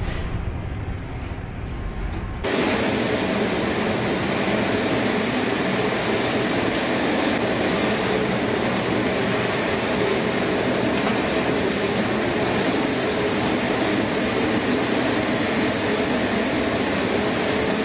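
Storm wind and heavy sea heard from a container ship's bridge: a low rumble that switches abruptly about two and a half seconds in to a steady rushing noise with a faint hum beneath it, as the ship ploughs through breaking waves.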